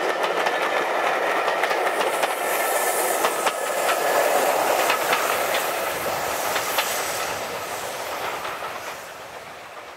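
Passenger coaches of a steam-hauled train rolling past, their wheels clattering over the rail joints in a quick run of clicks. The sound fades away over the last few seconds as the train recedes.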